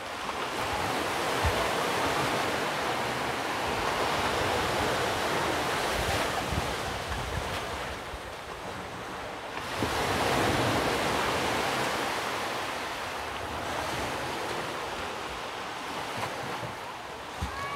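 Sea surf washing in and out, swelling about halfway through, with a few low thuds of wind buffeting the microphone.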